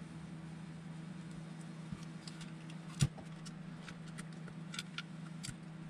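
Small clicks and taps of RC car parts and tools being handled during assembly, with one sharper knock about three seconds in, over a steady low hum.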